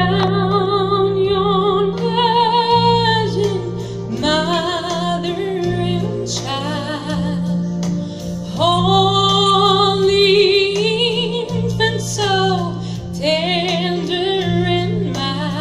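A woman soloist singing a hymn with wide vibrato and long held, ornamented notes, over sustained low keyboard chords that change every second or two.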